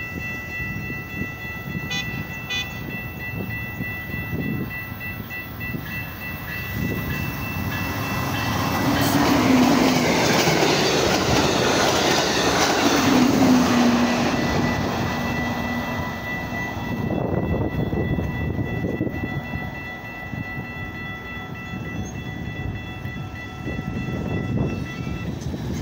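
Amtrak Hiawatha passenger train passing over a grade crossing: the rumble and clatter of its wheels build up, are loudest for several seconds in the middle, then fade as it moves away. A grade-crossing warning bell rings steadily underneath, stopping just before the end.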